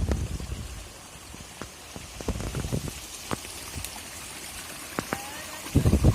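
Wind buffeting the microphone at the start, dying away within about a second and returning near the end. Between the gusts there is a faint steady hiss of running water, with scattered light ticks and taps.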